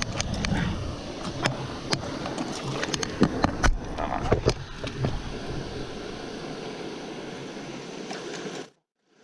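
Close handling noise of clicks, knocks and rustles over the steady rush of creek water for the first half, then only the water, cutting off abruptly shortly before the end.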